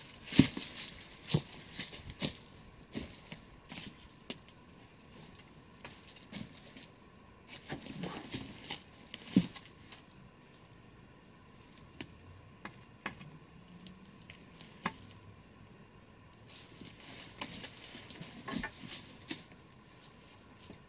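Footsteps crunching through dry fallen leaves and loose stones on a rocky slope, mixed with the knocks of a wooden walking stick. They come in irregular clusters of crunches and clicks, with a quieter stretch in the middle.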